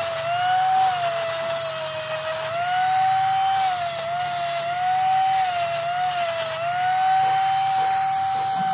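Die grinder with a small grinding stone spinning at high speed on a steel hydraulic breaker piston: a high whine whose pitch sags and recovers as the tool is pressed onto the work and eased off, then holds steady near the end.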